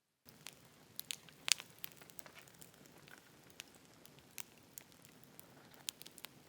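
Campfire crackling: irregular sharp pops and snaps over a low steady hiss, one loud pop about a second and a half in.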